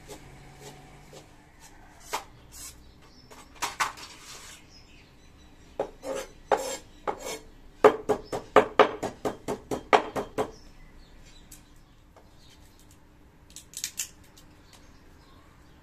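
Kitchen knife chopping vegetables on a cutting board: scattered knocks, then a quick even run of chops, about four a second, in the middle, and a few light knocks near the end.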